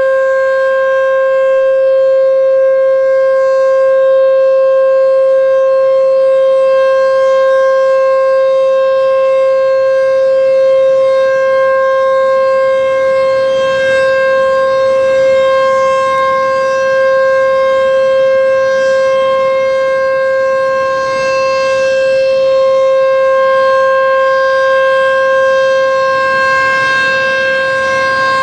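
H.O.R. Super-Sirex 50 HP civil defense siren sounding its steady Alert signal: one loud, unbroken tone held at a fixed pitch.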